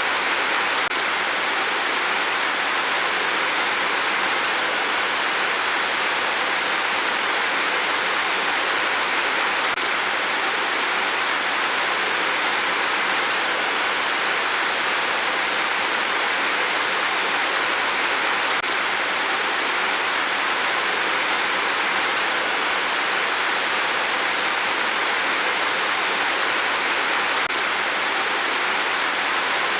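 Rain falling steadily, an even hiss that neither swells nor drops away.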